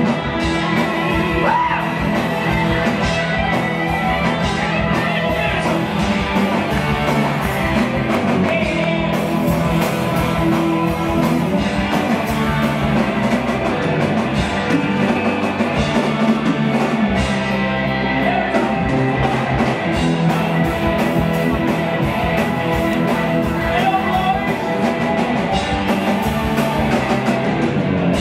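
Live rock band playing: drum kit, bass guitar and keyboards, with a male singer's voice over them.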